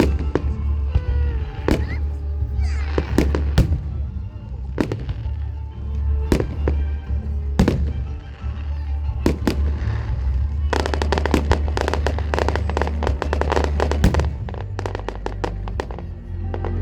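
Fireworks display: separate bangs of shells bursting, then a dense run of rapid crackling reports about eleven seconds in that lasts around three seconds. Music with a heavy, steady bass plays underneath.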